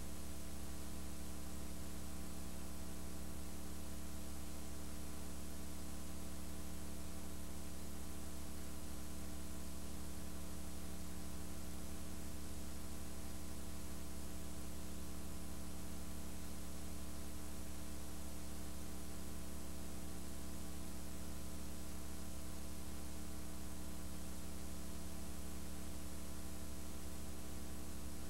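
Steady electrical mains hum with its stack of overtones, over a constant layer of hiss.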